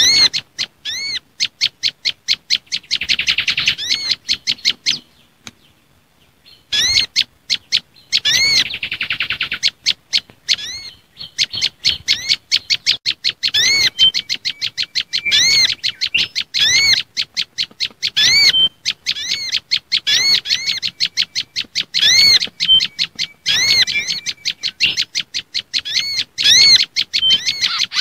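Recorded bird-trapping lure call of small songbirds: a fast, insistent series of sharp arching chirps, broken by two rapid trills about three and eight seconds in and a short gap near six seconds, with a few brief high whistled notes later on. The track mixes agitated prenjak lumut (tailorbird) calls with mangrove whistler and sunbird calls.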